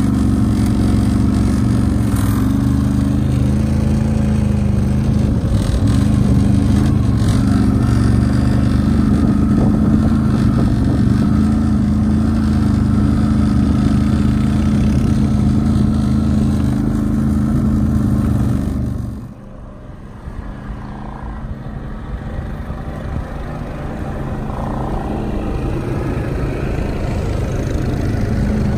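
ATV engine running steadily under load. About two-thirds of the way through it suddenly drops away, and a quieter engine sound then grows gradually louder.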